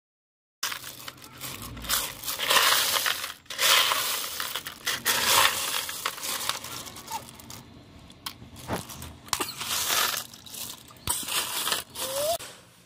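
Hands rummaging through a tub heaped with small live clams, the shells clattering and grating against each other in irregular bursts as the empty ones are picked out. It starts about half a second in.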